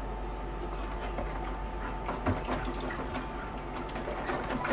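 Water sloshing and splashing in a bucket as hands rinse a halved western rock lobster, washing the gunk out of its head. The splashes come in short clusters, about two seconds in and again near the end, over a steady low hum.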